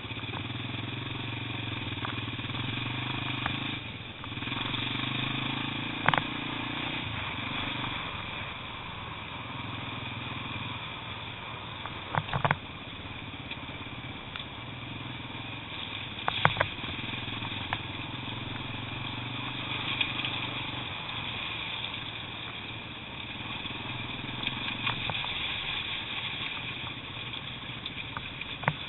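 Off-road trail motorcycle engine running on a rough, rocky lane, its note swelling and dropping as the throttle opens and closes. A few sharp knocks cut through, several seconds apart.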